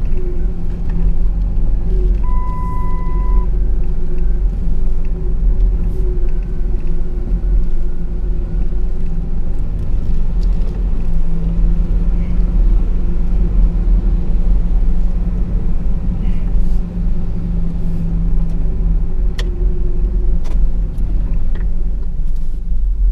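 Dodge Power Wagon pickup driving slowly in four-low, heard from inside the cab: a steady low engine and drivetrain rumble. A single beep of about a second sounds about two seconds in.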